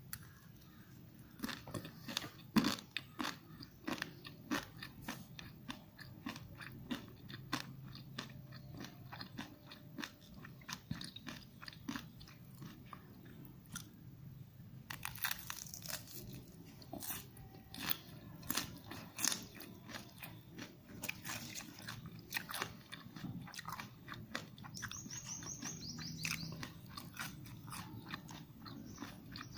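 A person biting and chewing Wai Wai instant noodles close to the microphone: a steady run of sharp, irregular crunches, busiest in the second half. A bird chirps a few times near the end.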